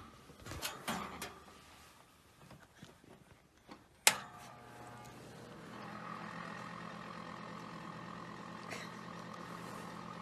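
A dog's paws scraping and clicking against an electric space heater. About four seconds in comes a sharp click, and the heater comes on with a steady hum.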